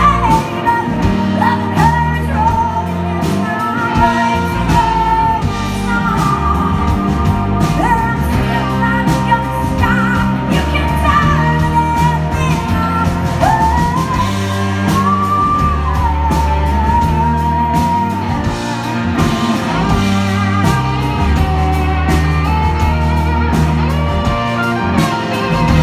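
Live rock band: a woman sings the lead melody with vibrato over electric guitar, bass guitar and drums.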